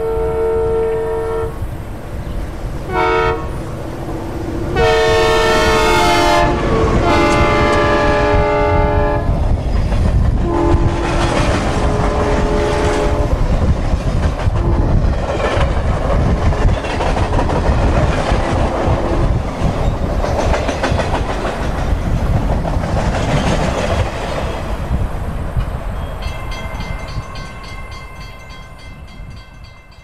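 Synthesized recreation of a Nathan M3H three-chime train horn sounding a series of blasts as a train passes. A long blast about five seconds in drops in pitch as it goes by, and the following blasts sound lower, over the steady rumble of the passing train. All of it fades away near the end.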